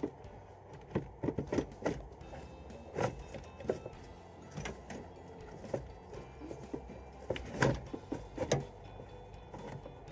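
Irregular clicks, knocks and rattles of hard plastic parts and hoses being handled and pulled around the air filter housing in an Alfa Romeo 147 JTDm engine bay. The loudest knock comes about three-quarters of the way through.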